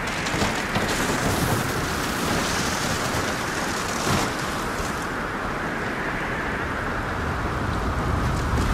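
Stormy sea ambience: a steady rush of wind and surf. It swells briefly about half a second in and again around four seconds in, and a low rumble builds near the end.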